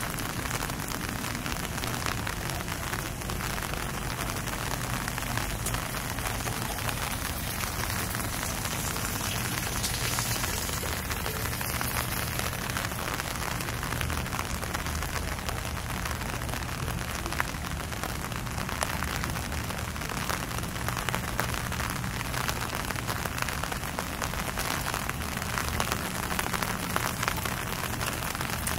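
Steady rain falling on city street surfaces, an even hiss scattered with sharp drop ticks.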